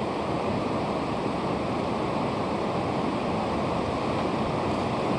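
Grade III alpine river rapids rushing over boulders: a steady, unbroken water noise.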